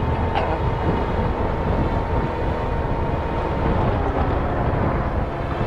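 Motorcycle riding at a steady road speed: a steady engine note that eases down slightly about four seconds in, over a low wind and road rumble.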